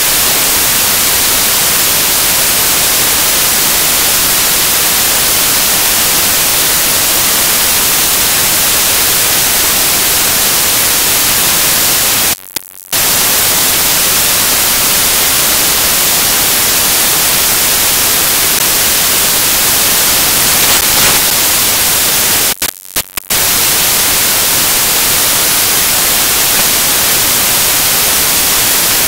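Loud, steady white-noise static hiss with no other sound in it, the kind an audio signal fault produces. It cuts out to silence twice for about half a second, about twelve seconds in and again about twenty-three seconds in.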